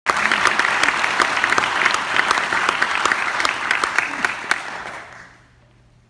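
Audience applauding with many hands clapping, thinning out and dying away about five seconds in.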